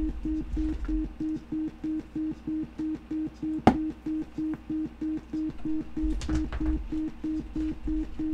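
Sine-wave tone from a DIY modular synth oscillator through a speaker, switched on and off by an analog switch gated by a clock divider's output: an even beeping of about three beeps a second. A single sharp click comes about three and a half seconds in, and low bumps follow a couple of seconds later.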